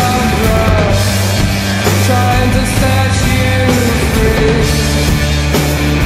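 Rock music with a singing voice, loud and steady.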